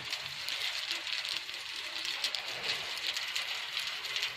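Steady high hiss of outdoor background noise, dotted with fine crackling clicks.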